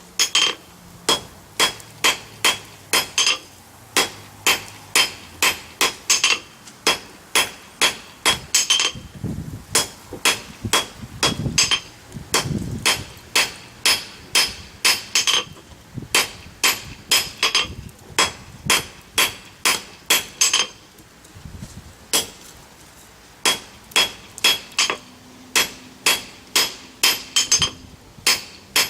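A blacksmith's forging hammer strikes hot steel in quick runs of blows, about two to three a second, each with a bright ring, pausing briefly a few times. He is hammering a freshly forge-welded joint in the reins of a pair of tongs.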